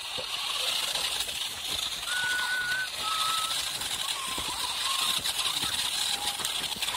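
A small wired robot car's geared electric drive motors run steadily with a high hum while its rubber wheels crackle and rattle over clods of dry soil.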